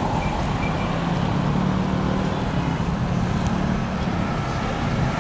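Roadside traffic: motorized tricycles (auto-rickshaws) driving past with their small engines running, over steady road noise.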